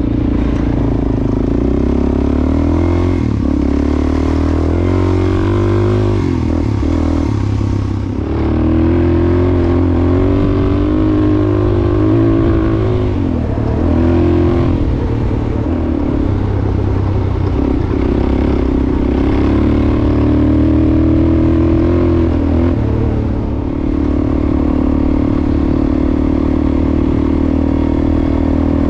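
Suzuki DR-Z400S single-cylinder four-stroke dual-sport motorcycle engine running while riding, its pitch rising and falling with the throttle. The sound dips briefly about eight seconds in and again around twenty-three seconds, as the revs drop and pick back up.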